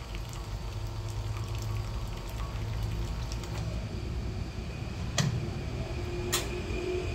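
Gemilai 3146 espresso machine humming steadily as a thin stream of water trickles from its E61 group onto the metal drip tray. Two sharp metallic clicks come about five and six seconds in, as the portafilter is unlocked and pulled out of the group.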